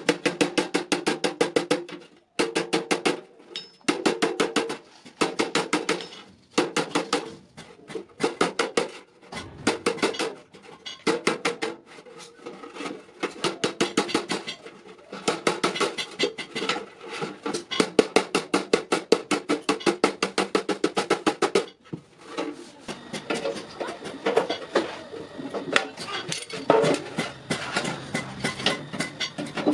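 Hammer blows on hot iron on an anvil: rapid runs of sharp metallic strikes, about five a second, broken by short pauses, with the metal ringing under them.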